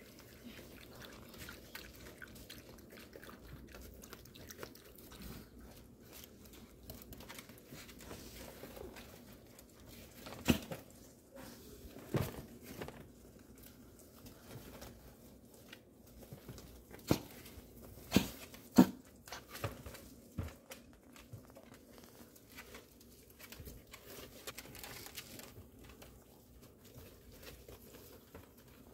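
Chihuahua puppies shuffling and scratching about on puppy pads in a plastic tub, a soft rustling with a few sharp knocks and taps around the middle.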